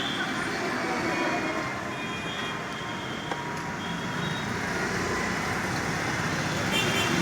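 Steady background noise of road traffic, with a few faint short high tones over it.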